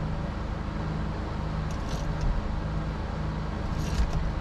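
Steering wheel puller being tightened against the steering wheel over a steady low hum, with a few light clicks; about four seconds in, a sharp knock as the wheel comes loose off the column splines.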